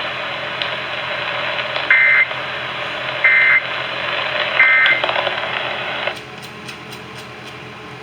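Three short two-tone data bursts of an Emergency Alert System end-of-message signal, a little over a second apart, over the steady hiss of AM radio reception. The hiss drops away sharply about six seconds in.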